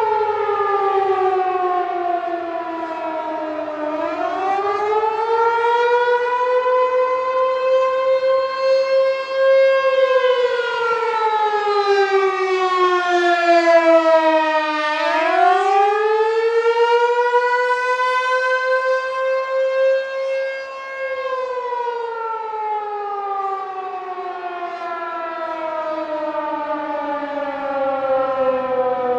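American Signal T-128 tornado siren sounding the attack signal: its pitch slowly falls and rises in turn, about every five to six seconds. The loudness swells and dips as it goes.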